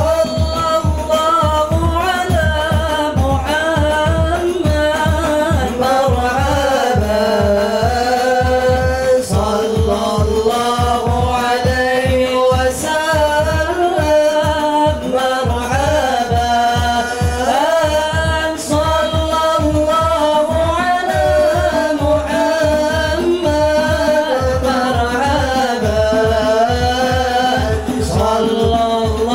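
Men singing a chant-like devotional melody in unison, accompanied by a fast, steady beat on rebana frame drums.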